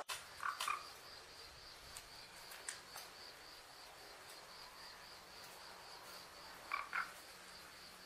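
Hill mynah giving two short soft calls near the start and two more near the end, over a faint high chirping pulse in the background, about three pulses a second.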